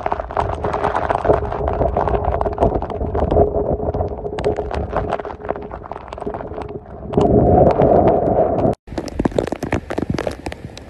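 Storm wind and heavy rain battering the microphone: a rough rumble of wind with many sharp ticks of raindrops striking it. A louder gust comes about seven seconds in. Then the sound cuts out for a moment and picks up again with the same wind and rain.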